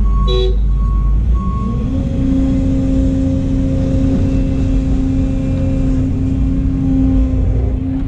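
Volvo excavator's diesel engine and hydraulics running, heard from inside the cab: the pitch rises about two seconds in and holds a steady whine as the machine works the bucket over a dump truck. A dump truck's reversing alarm beeps about twice a second for the first second and a half, with a short click near the start.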